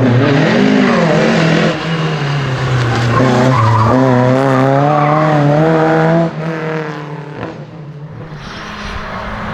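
Rally car engine at full throttle close by, its pitch climbing under hard acceleration, then dropping away sharply about six seconds in to a quieter engine note.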